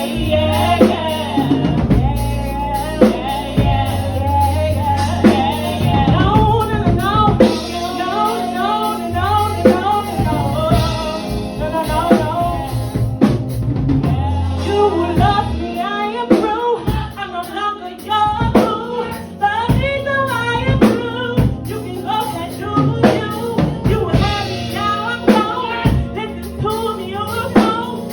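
Live music: a singing voice over a drum kit playing a steady beat.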